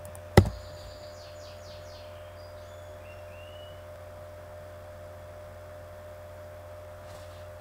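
One sharp computer-keyboard keystroke about half a second in, then a steady low electrical hum with a fainter higher tone over it.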